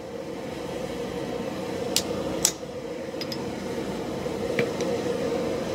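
Two sharp hammer blows on a handled punch, a second or so half a second apart about two seconds in, driving a hole through the hot steel of a cleaver blade on the anvil. A few lighter metal clinks follow over a steady hum.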